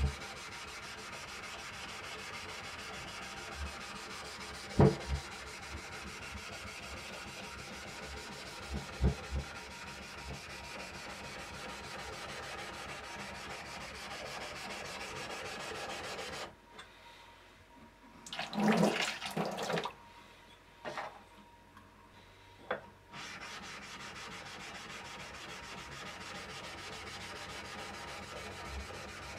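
Steel kanna (Japanese plane) blade being honed on a synthetic waterstone, a steady wet scraping rub with a few light knocks. About halfway the rubbing stops for several seconds, broken by a few louder clatters and knocks, then resumes.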